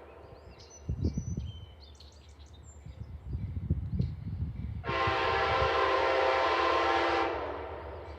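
Amtrak passenger locomotive's air horn sounds one long, steady chord about five seconds in, lasting a bit over two seconds before dying away. Before it comes the low, uneven rumble of the passing train.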